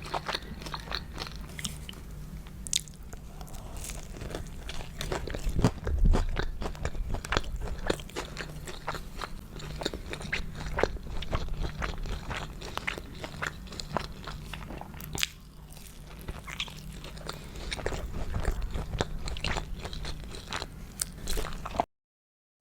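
Close-miked eating of crunchy food: a dense run of bites and chewing crunches over a steady low hum, cutting off abruptly near the end.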